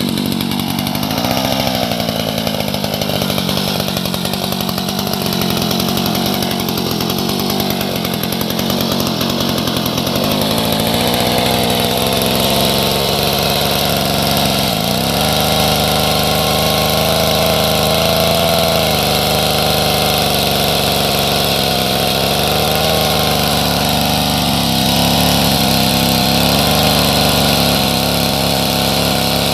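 Two-stroke engine of a 1940s Stihl chainsaw running steadily, its pitch wavering slightly.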